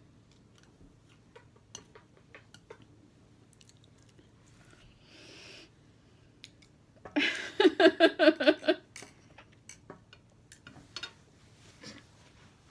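Faint chewing and small clicks at the table. About seven seconds in comes a short burst of rapid, rhythmic laughter.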